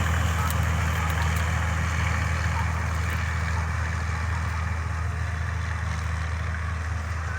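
Manpreet 765 combine harvester running steadily while cutting wheat: a deep, even engine drone with a broad hiss over it, slowly growing fainter.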